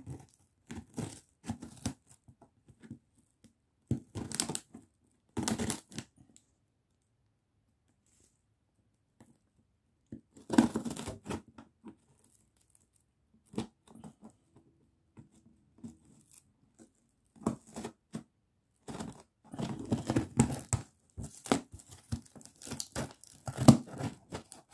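Scissor blade slitting and ripping the packing tape and cardboard seams of a parcel, with the cut tape torn back, in irregular bursts of scraping and tearing. There are a few quiet seconds in the first half, and the ripping grows busier in the last third.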